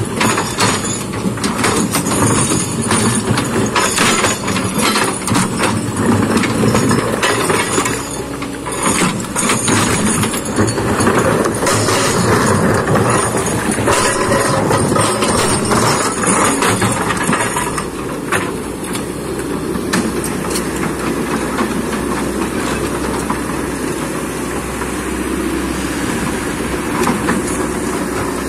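Kobelco hydraulic excavator's diesel engine running under load, with a rapid clatter of knocks and rattles from the machine at work through most of the first two-thirds, settling to a steadier engine sound for the last third.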